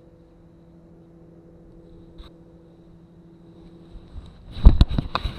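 Steady low hum of an electric trolling motor on a bass boat. About four and a half seconds in, the hum gives way to a burst of loud splashing and knocking as a bass is landed at the boat.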